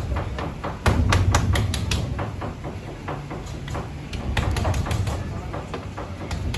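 Quick, irregular knocks on a hard surface, several a second and densest about a second in, over a low steady hum.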